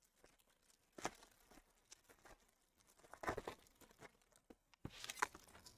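Foil wrapper of a baseball card pack crinkling and tearing open in the hands, in three short rustling spells: about a second in, around three seconds in, and near five seconds.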